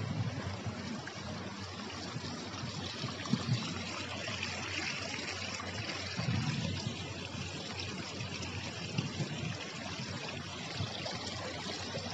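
Water trickling and splashing steadily along a narrow stone-lined garden channel that steps down beside a stairway.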